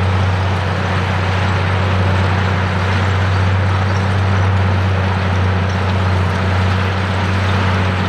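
Komatsu D85E bulldozer's diesel engine running steadily under load as the blade pushes crushed stone, a constant low hum with a broad noise of tracks and rock over it.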